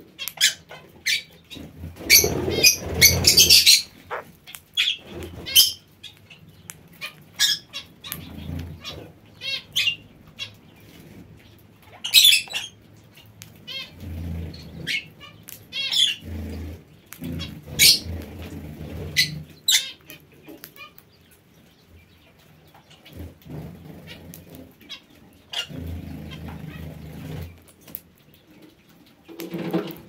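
Aviary parakeets and lovebirds giving short, sharp high-pitched chirps scattered throughout, mixed with several second-long rushes of wing flapping close by.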